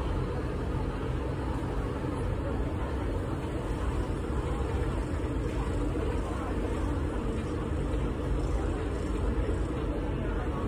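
Steady running noise of a river ferry under way: its engine drone mixed with water rushing past the hull.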